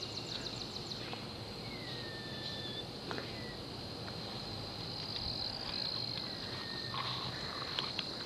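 Insects trilling steadily in a high pitch, with two faint falling whistles about two and six seconds in and a few light clicks near the end.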